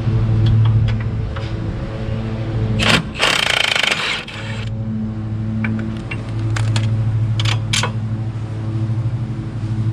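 A small engine running steadily in the background, a lawn mower, its drone swelling and fading, with a loud hiss lasting about a second and a half about three seconds in and a few light metallic clicks of tools.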